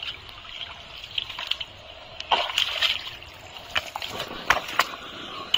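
Shallow muddy water sloshing and splashing as hands grope through it, with several sharper splashes from about two seconds in.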